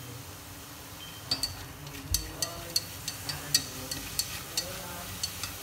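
Chopsticks clicking against the side of a stainless steel pot while beef is stir-fried, with sharp, irregular clicks a few times a second starting about a second in. Underneath is a light, steady sizzle of the meat frying.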